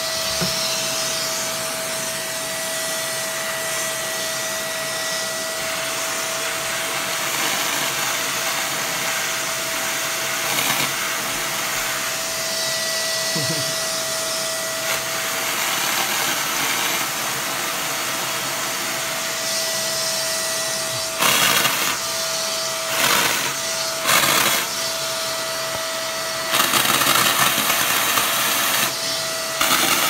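Handheld cordless vacuum cleaner running steadily with a constant whine, its nozzle being drawn over a cat's fur. The airflow surges louder several times in the last third.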